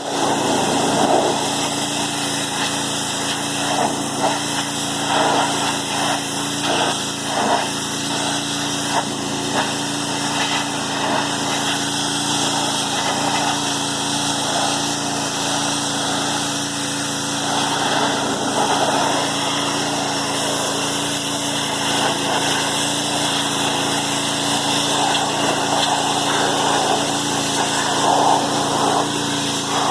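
Pressure washer running steadily, its motor holding a constant pitch under the hiss of the high-pressure water jet, which rises and falls a little as the spray hits different surfaces.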